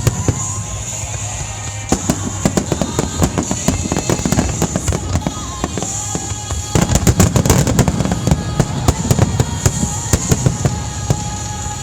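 Fireworks finale: a rapid run of aerial shell bursts and crackling, growing into a dense barrage about seven seconds in.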